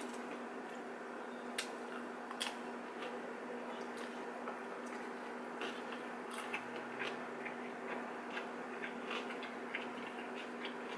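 Two people chewing dumplings, with scattered small clicks and taps from eating, over a steady low hum.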